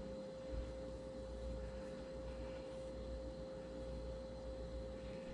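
Faint steady pure tone held at one pitch, with a low hum beneath it.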